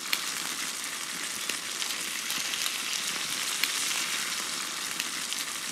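Food frying in a hot pan: a steady sizzle with scattered small pops and crackles.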